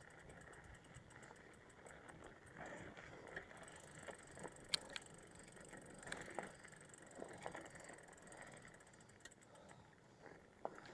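Faint clicks and rattles from a bicycle being ridden, with rapid freewheel ticking at times and one sharper click about halfway through.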